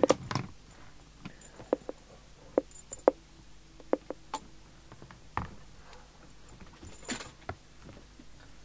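Scattered clicks and knocks of a CB radio's power leads and metal PL-259 coax plug being handled and unplugged, with a short rustle late on.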